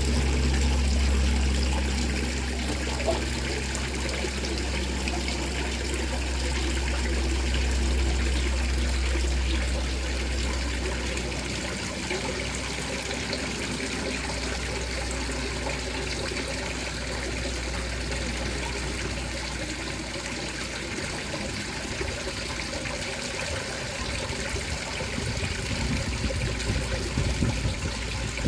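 Light rain falling with water trickling steadily. A low wind rumble runs under it until about two-thirds of the way through, then returns in uneven gusts near the end.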